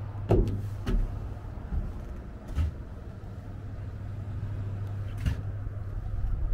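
A steady low mechanical hum, with four sharp knocks over it: two close together near the start, one a couple of seconds in and one about five seconds in.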